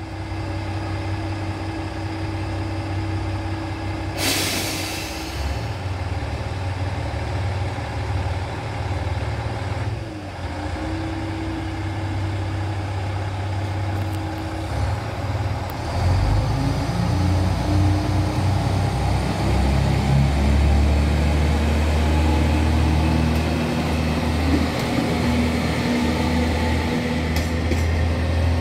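Kanto Railway KiHa 5000 series diesel railcar's engine idling, with a short burst of hiss about four seconds in. About halfway through the engine throttles up and runs louder as the railcar pulls away.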